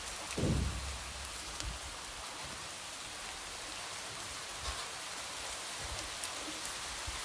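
Light rain tapping against a window: a steady hiss with scattered sharp drop ticks. A brief low thump about half a second in.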